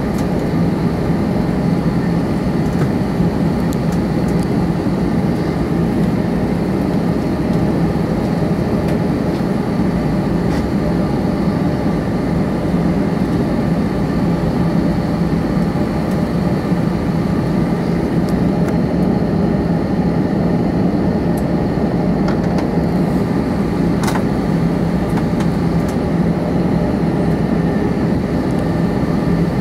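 Airliner cabin noise from inside an Airbus A321 taxiing: a steady engine hum at low taxi power over an even rushing noise.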